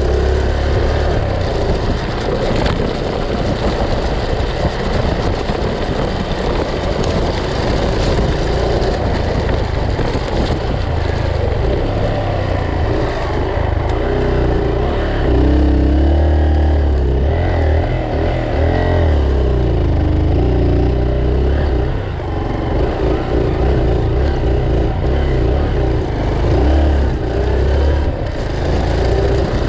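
Honda Bros trail motorcycle's single-cylinder four-stroke engine running as the bike rides along a dirt track, its pitch rising and falling with the throttle, over a constant low rumble and rolling noise.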